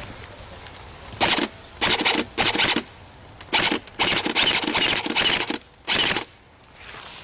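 Airsoft gun firing in about eight short full-auto bursts, each a quarter to half a second long, between about one and six seconds in.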